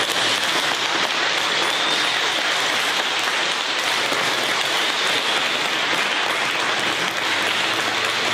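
A church congregation applauding steadily, many hands clapping at once.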